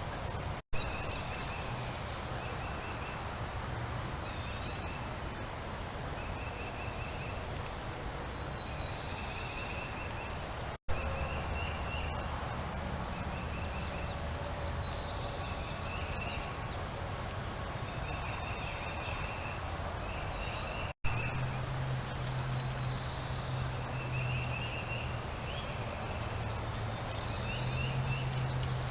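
Birds singing and calling, with runs of short repeated chirps and higher whistled notes over a steady low hum. The sound drops out briefly three times, each time with a click.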